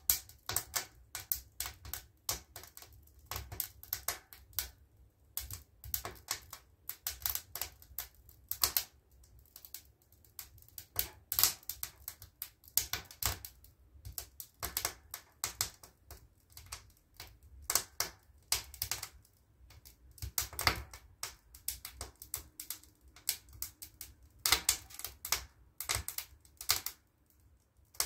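Wood fire crackling inside a Harvia wood-burning stove: irregular sharp snaps, several a second, over a low rumble.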